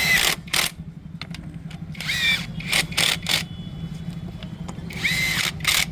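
A power driver running the clutch cover bolts in: three short whines that rise and fall, about every two to three seconds, with sharp tool clicks between them over a steady low hum.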